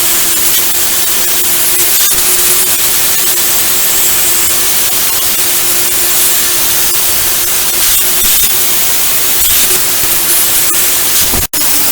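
Handheld power tool running steadily with a constant motor whine under loud hissing noise, typical of abrasive work such as grinding or wire-brushing the shovel's metal. There is a brief break near the end.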